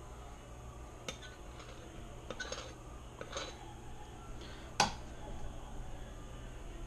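A metal measuring cup scooping flour from a plastic tub and a knife levelling it off: soft scuffs and light clinks, with one sharper metal clink about five seconds in.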